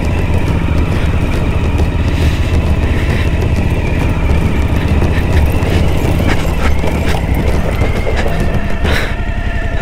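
Suzuki V-Strom 1050XT's V-twin engine running at low revs with a steady, uneven low thrum as the bike rolls slowly over a rocky gravel track, heard from on the bike.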